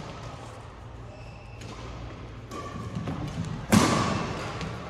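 Doubles badminton rally in a large hall: light racket hits on the shuttlecock and short squeaks from the court. About three and a half seconds in comes one loud, sharp impact that echoes around the hall.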